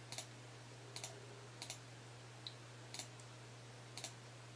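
Faint, sharp clicks about once a second at a computer while photos are paged through on screen, over a low steady hum.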